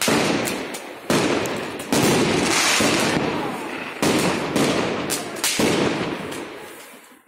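Fireworks going off overhead: a string of sharp bangs, one about every half second to a second, each trailing off gradually, with crackling in between. The bangs die away near the end.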